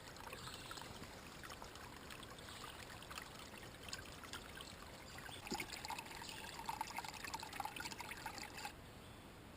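Running water trickling and splashing, faint but steady. A busier, brighter spell of splashing comes over the last few seconds and stops abruptly.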